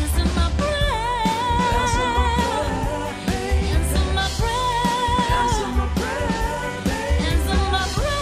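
Background music: a melody of long held, wavering notes over a steady bass beat.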